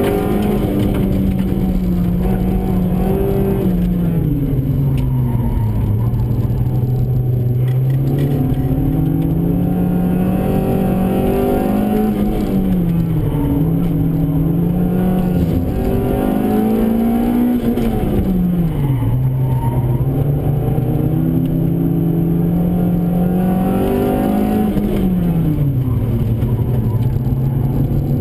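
A Honda Civic's B16A2 1.6-litre VTEC four-cylinder engine working hard, heard from inside the cabin. It revs up and down in pitch, dropping sharply four times as the driver lifts off or shifts gear.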